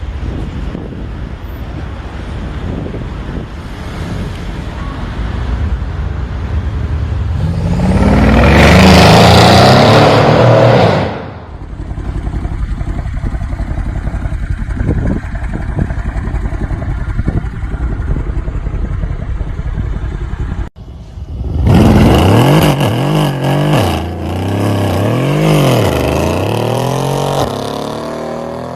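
Car engine running and revving hard, with one loud rising rev in the middle that cuts off. After an abrupt cut, a car engine is blipped up and down several times in quick succession.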